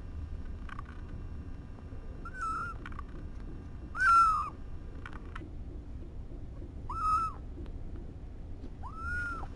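Young kittens mewing: four short calls, each rising and falling in pitch, the loudest about four seconds in.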